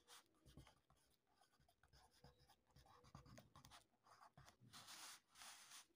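Faint scratching of a pencil writing on paper, in short strokes that come and go as the words are written out.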